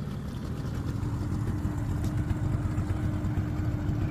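Small outboard boat motor running steadily: a low rumble with a constant hum, growing slightly louder.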